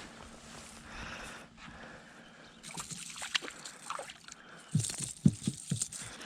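Water sloshing and trickling, then a quick run of low thumps about two-thirds of the way through.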